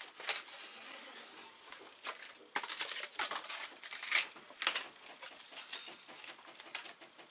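Stiff Dacron sailcloth and paper crinkling and rustling under hands as a patch is handled and smoothed down on the sail. It starts as a steady rustle, then turns into a run of sharp crackles, the loudest of them around the middle.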